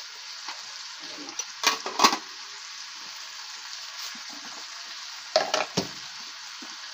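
Cabbage stir-fry sizzling steadily in a wok. Sharp metal clanks come about one and a half to two seconds in as an aluminium lid is set on the pot of pap beside it, and a few more knocks follow near the end.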